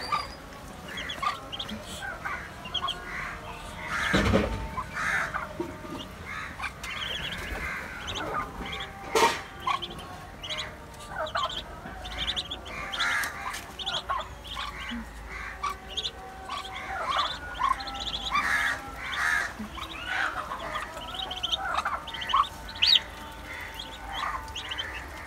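A brood of Muscovy ducklings peeping constantly in short high chirps, with a couple of sharp knocks a few seconds in.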